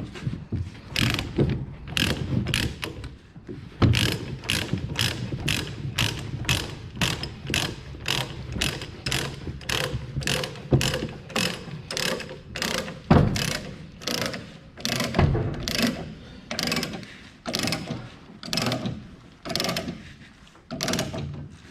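Ratchet-type chain binder being cranked to tighten a tie-down chain: a steady run of ratchet clicks, about two a second.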